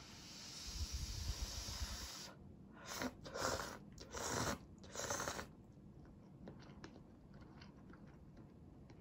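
Close-miked eating of Nissin seafood cup noodles. A rushing noise lasts about two seconds, then come four short, louder mouth sounds, then soft chewing clicks.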